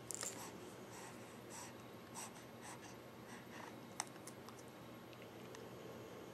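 Faint scratchy rustling and small clicks as a baby handles and mouths a plush toy on a plastic activity saucer, with one sharper click about four seconds in.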